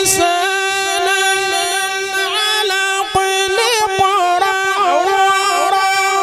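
A qari's voice reciting the Quran in a melodic tajweed style, holding one long note that wavers in ornamented turns partway through. A short sharp sound comes right at the start.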